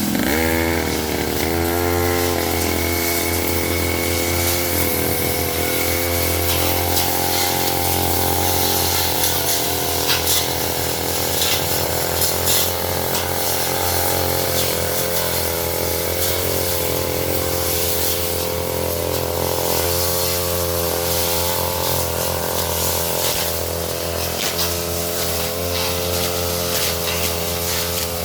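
Brush cutter engine running at high revs, its pitch dipping and recovering now and then as the blade takes load in the undergrowth.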